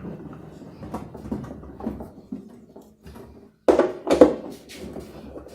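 Light clatter of parts and tools being handled during assembly of a washing machine's drive mechanism, with two louder knocks about four seconds in.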